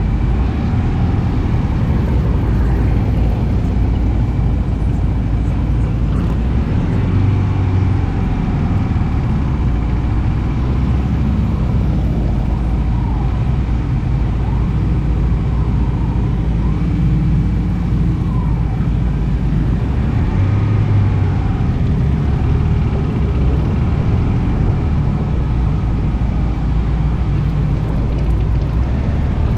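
Motorcycle riding slowly in traffic: a steady, loud low engine rumble with road noise, and a few short rising and falling engine notes from nearby vehicles.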